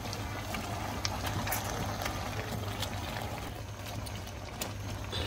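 Pan of softened raw mango slices simmering, bubbling with many small scattered pops, as a wire potato masher squashes them.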